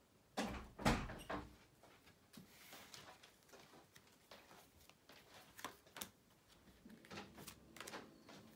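Tarot cards handled on a table: a cluster of sharp knocks and slaps about half a second to a second and a half in, then scattered light taps as cards are drawn and laid down.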